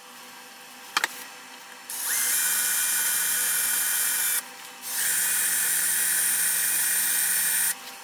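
A single click, then a small power-tool motor run twice at a steady speed, about two and a half seconds each time, with a brief pause between the runs.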